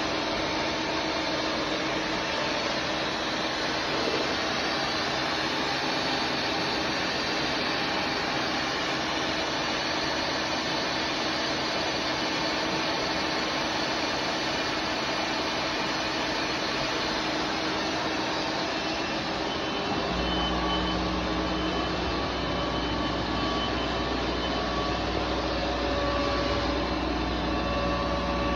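CNC bridge machining centre running with a steady mechanical whirr and a few steady tones. About two-thirds of the way through, a deeper steady hum comes in alongside it and holds.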